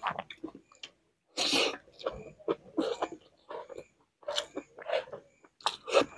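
Close-miked eating sounds: chewing and short wet mouth clicks as a hand-scooped meal of rice and curry is eaten, with one louder, short breathy burst about a second and a half in.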